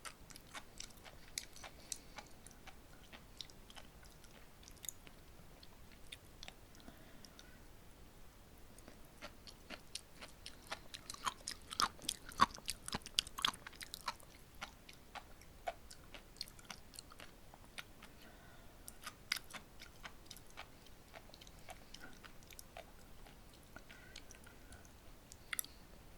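Close-miked chewing of sea grapes (Caulerpa lentillifera), the little seaweed beads popping as many small crisp clicks. The pops come sparsely at first, thicken into a quick run about halfway through, then thin out again.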